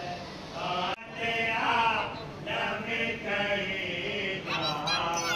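A group of male voices chanting together in long held notes, without instruments. The sound breaks off sharply for an instant about a second in.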